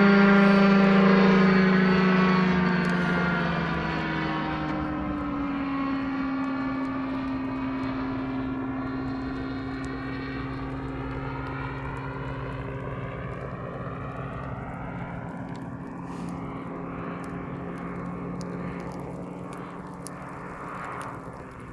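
Ultralight aircraft's engine and propeller flying past, the pitch dropping over the first few seconds as it goes by, then fading steadily as it flies away.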